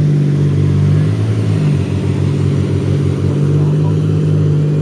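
Lamborghini Murciélago 6.2-litre V12 idling steadily, a deep, even running note that holds its pitch.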